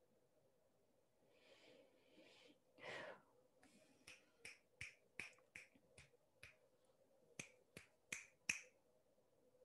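Finger snapping: about a dozen sharp snaps a little over two a second, with a short pause midway, the last few loudest. A few soft breathy noises come just before them.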